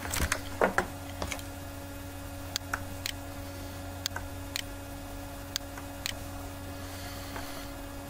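Computer mouse clicking: about a dozen short, sharp clicks scattered unevenly through several seconds, over a steady low electrical hum.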